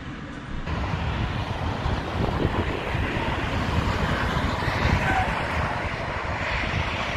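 Wind buffeting the microphone over the steady rush of motorway traffic, starting abruptly less than a second in, with passing vehicles swelling and fading.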